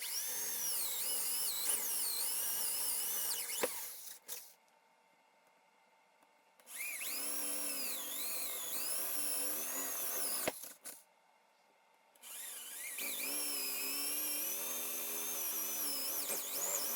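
Electric drill boring into the wooden desktop in three runs of a few seconds each, with short pauses between. Each time the motor's whine climbs as it spins up, then dips and wavers as the bit bites into the wood.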